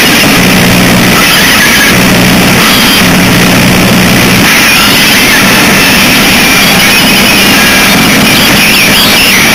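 Harsh noise music: a loud, unbroken wall of distorted static. A low hum cuts in and out under it and stops about halfway through, and wavering high squeals come in near the end.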